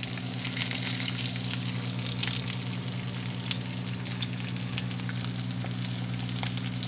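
Eggs frying in bacon grease in a skillet: a steady sizzle with scattered small pops and crackles, over a steady low hum.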